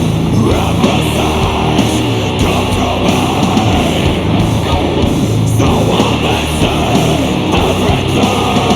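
A sludgy, grinding death metal recording playing loudly and without a break, heavy on distorted guitar.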